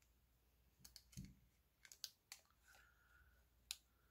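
Faint scattered clicks and taps of a small makeup container being handled and opened, with a soft thump about a second in.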